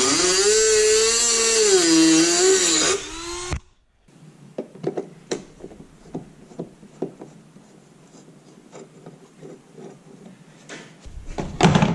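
Dremel rotary tool with a metal cutting disc cutting into a car bumper: a high whine that dips and rises in pitch as the disc is pressed into the cut, stopping suddenly after about three and a half seconds. Then light clicks and taps of handling, with a louder knock near the end.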